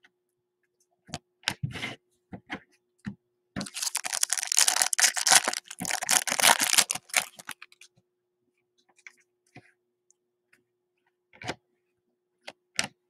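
A foil trading-card pack torn open and its wrapper crinkled, a dense crackle lasting about four seconds from roughly three and a half seconds in. Scattered light clicks of cards being handled come before and after it.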